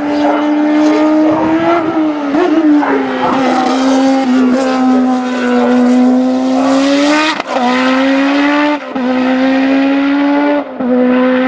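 BMW M12 turbocharged four-cylinder engine of a Brabham BT52 Formula 1 car running hard on track. The note holds a steady pitch and breaks briefly three times in the second half.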